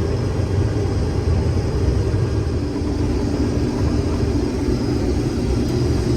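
Rotary combine harvester running steadily while cutting soybeans: a constant low engine drone with a steady hum of the threshing machinery over it.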